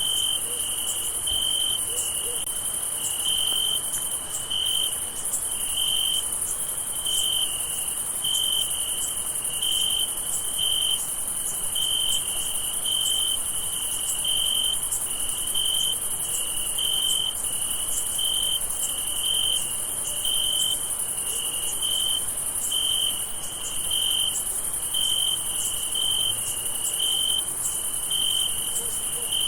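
Crickets chirping at night: one cricket gives regular chirps, a little more than one a second, over a steady high-pitched trill from a chorus of insects.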